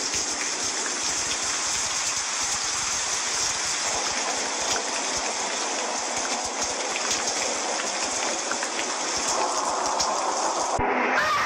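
Steady rain, an even hiss that cuts off abruptly shortly before the end as a different sound begins.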